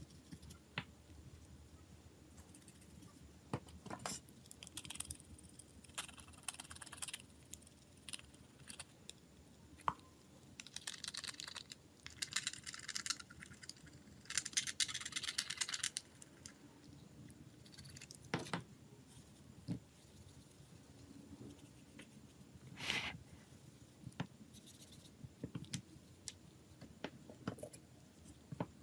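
Hand work on small phone parts: scattered light clicks and taps, and two raspy scraping spells of a second or two near the middle.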